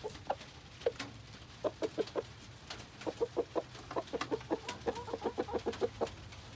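Chickens clucking in short repeated notes, a group of four about two seconds in, then a faster run of clucks, about four or five a second, from about three seconds on. They are stirred up over a grub held out to them.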